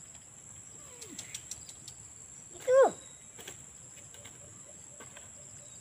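An animal's call: one loud, short cry that falls steeply in pitch, about three seconds in, with a fainter falling cry about a second in.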